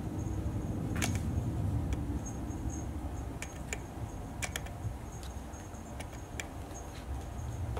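A kitten biting and clawing at a pile fabric mat: scattered small clicks and scratchy ticks, a few seconds apart and sometimes in quick pairs, over a low steady room rumble.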